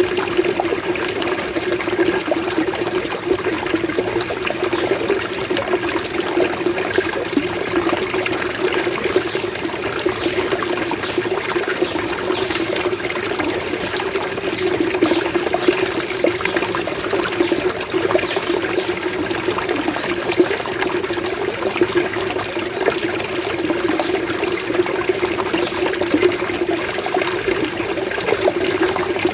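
Small stream of running water gurgling and burbling steadily, with no pauses or changes.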